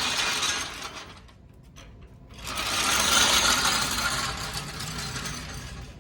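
A fast, dense mechanical rattle that drops away about a second in, returns after a short lull and fades toward the end.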